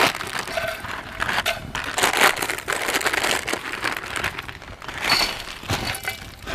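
Plastic instant-noodle packets crinkling and rustling in irregular bursts as they are torn open and emptied.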